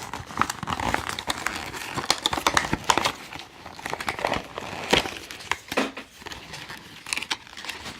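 Plastic blister packaging of a toy car crinkling and crackling as it is handled and worked open, with many irregular sharp clicks and rustles.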